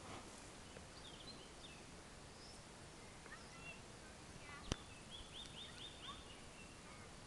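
Faint songbird chirps and trills over a quiet outdoor background, with a run of quick repeated notes a little past the middle. A single sharp click just before the run is the loudest sound.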